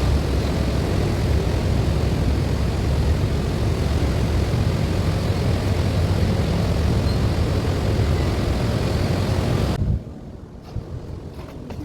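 Loud, steady mechanical roar, heaviest in the low end with no clear pitch, like a large fan or blower running. It starts suddenly and cuts off abruptly about ten seconds in, leaving a much quieter background.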